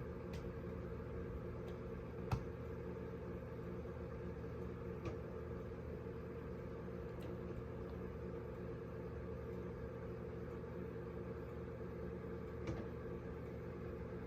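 Steady low hum made of several steady tones, with a few faint clicks, the clearest about two seconds in.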